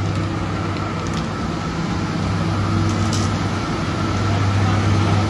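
Steady drone of sugar mill machinery, electric motors and pumps running, with a deep constant hum and a thin steady whine above it.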